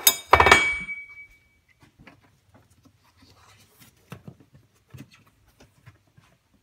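A loud metallic clank and clatter in the first second, with a short ring dying away, then faint scattered clicks and handling noise.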